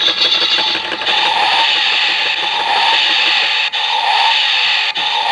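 Little Tikes Touch N Go Racer toy police car playing its electronic engine-revving sound effect through its small speaker. It starts suddenly and runs on as a hissy engine noise with a wavering tone.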